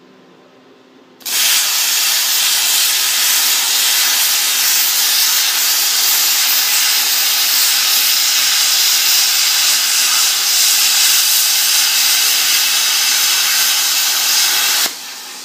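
Air plasma cutter cutting metal: the arc fires about a second in with a loud, steady hiss and runs until near the end, when it cuts out and leaves a quieter hiss of air still blowing through the torch.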